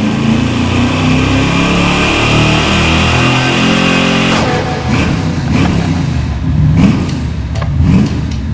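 Classic Ford Mustang's engine running hard and steady on a chassis dyno. About four and a half seconds in it drops off, then revs rise and fall a few times.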